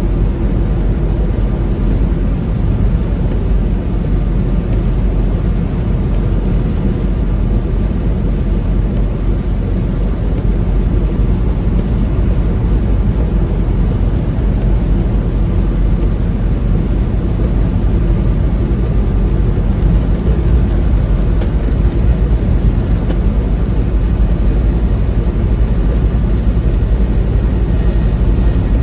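Semi-truck driving at road speed: a steady drone of engine and road noise, a little louder in the second half.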